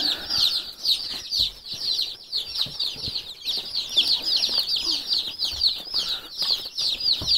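A brood of day-old Freedom Ranger chicks peeping nonstop, many short, high, falling chirps overlapping into a steady chorus, with faint rustles from the wood-shavings bedding.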